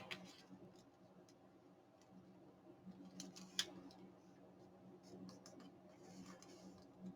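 Faint paper-crafting handling sounds: paper and cardstock being moved and worked on a desk, with a few light clicks about three seconds in, over a faint steady low hum.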